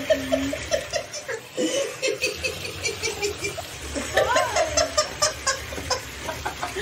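A person laughing, a long run of short repeated laughs, several a second.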